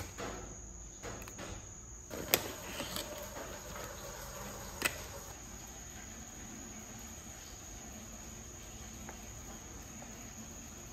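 A plastic tofu package being opened and handled, with sharp clicks a couple of seconds in and again about five seconds in, then a quiet knife slicing a block of tofu on a bamboo cutting board. A steady high-pitched tone runs underneath.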